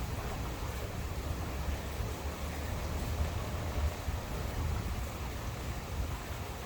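Steady rain falling, a continuous hiss with a low, uneven rumble underneath.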